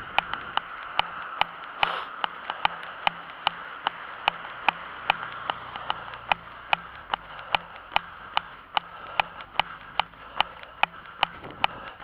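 A runner's footfalls jolting a handheld camera: a steady train of sharp ticks about two and a half a second, in time with the stride, over a continuous hiss.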